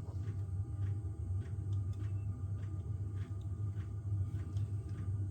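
Steady low hum with faint, irregular small clicks and ticks of hands working laptop internals, tucking a red wire out of the way.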